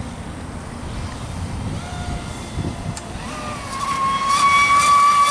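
Traxxas Spartan RC speedboat's brushless electric motor whining at full throttle on a fast pass. The high whine comes in about three seconds in, climbs briefly, then holds steady and grows louder as the boat approaches.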